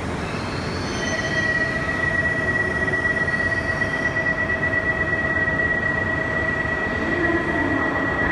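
E5 series Shinkansen train, with a steady high-pitched whine setting in about a second in over a dense low rumble.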